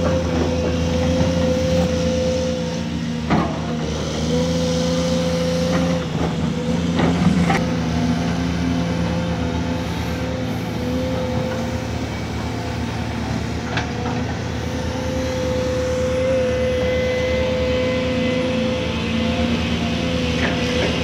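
Cat excavator's diesel engine running steadily under load with a constant whine, and a few short sharp knocks as it works coal and rock.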